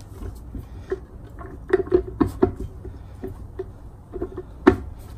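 Torque converter being lifted and turned on an automatic transmission's input shaft to seat it: scattered light metallic clicks and knocks as it works onto the splines, with a sharper knock near the end.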